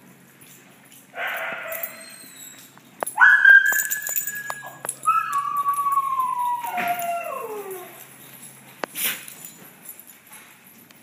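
A small dog whining and howling: a high held whine about three seconds in, followed by a longer cry that slides down in pitch. A short rough noisy sound comes before them, and another brief one near the end.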